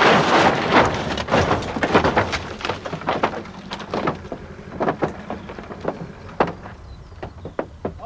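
Stunt car rolling over after being tipped by a compressed-air cannon: a loud crash at the start, then a string of metallic bangs and clatters that thin out and get quieter as the car comes to rest.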